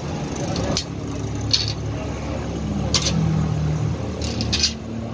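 Sharp metallic clanks, about five of them, as the steel leaves of a Suzuki Mehran's rear leaf spring and hand tools are handled and knocked together during reassembly. A steady low rumble runs underneath.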